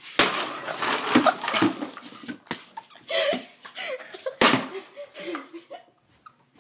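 People laughing, with two sharp smacks, one just after the start and one past the middle.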